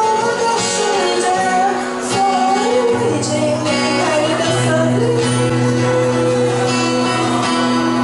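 Live acoustic performance of a song: a lead voice singing a melody over strummed acoustic guitar, with a shaker keeping time.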